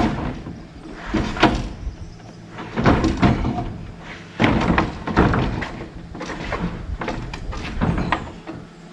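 A string of irregular wooden knocks and thuds: heavy engineered-wood subfloor sheets being moved and set down on the floor deck framing.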